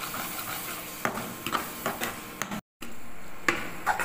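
A spatula scraping and knocking against a non-stick pan as an onion-and-masala curry base is stirred, over a soft steady sizzle. The scrapes come about twice a second, and the sound drops out for a moment past the halfway point.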